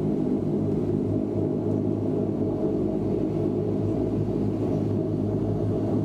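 Steady drone of a Bombardier Dash-8 Q400's Pratt & Whitney PW150A turboprop engines and six-bladed propellers, heard inside the passenger cabin as the plane taxis. A constant low hum runs under it.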